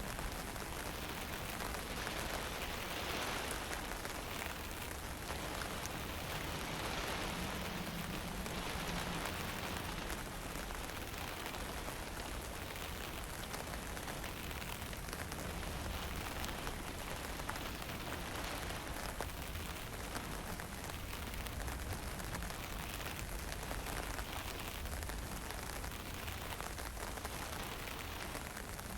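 Steady hiss of fine rain and drizzle, with wind rumbling on the microphone in gentle swells.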